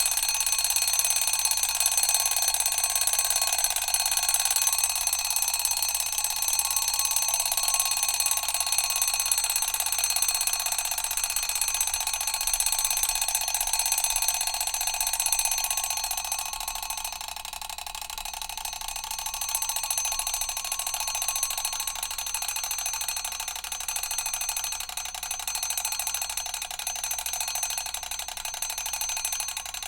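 Mechanical clock's alarm bell ringing continuously, a rapid metallic ringing with several steady bell tones. It eases slightly past the middle and starts to die away at the very end.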